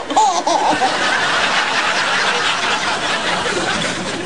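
Laughter, with a baby's short pitched vocal sound near the start.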